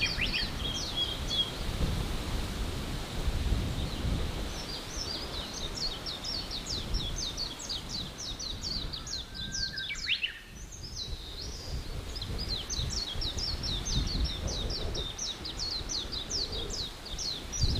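Forest songbird singing long runs of rapid, high, down-slurred chirps, several a second, with a short pause about ten seconds in. A steady low rumbling noise runs underneath.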